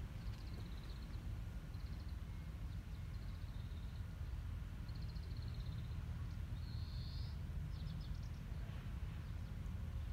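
Small birds calling in short, high, trilled chirps, several times, with the brightest call about two-thirds of the way in, over a steady low outdoor rumble.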